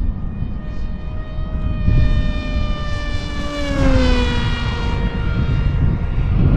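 RC Fleet Sonic Wing flying wing's electric motor and pusher propeller whining at speed in a low fast pass. The pitch slides down about four seconds in as it goes by. Wind rumbles on the microphone underneath.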